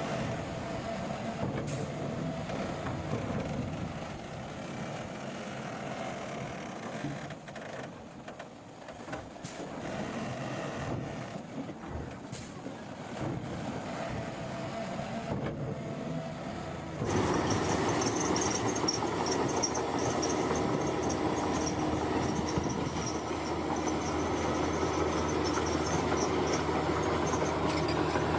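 Bulldozer working, its diesel engine and steel tracks running in a steady mechanical din. About seventeen seconds in, the sound abruptly becomes louder and brighter.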